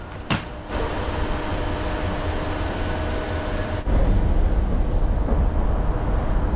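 Electric commuter train running, heard from inside the carriage: a steady rumble with faint steady motor tones. A sharp click comes just after the start, and the rumble grows louder and deeper about four seconds in.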